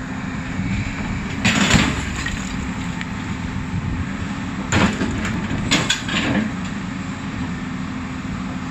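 33-tonne JCB excavator's diesel engine running steadily while its mounted Fractum 100 rock-breaking tool works a diabase boulder. Three short, sharp bursts, the first a second or two in and two more close together in the middle, as the rock cracks apart.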